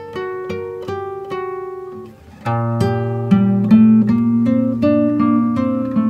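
Background music: acoustic guitar picking single plucked notes, swelling to a louder, fuller part with low notes a little under halfway through.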